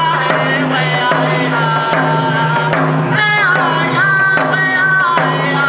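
Powwow hand drum song: a man's singing voice carries held notes that step and glide downward, over a steady beat struck on a rawhide frame hand drum.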